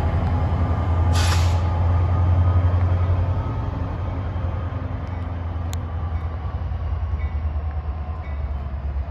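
NJ Transit diesel passenger locomotive's engine running with a steady low drone as the train moves away, growing quieter after about three seconds. A short hiss of air about a second in.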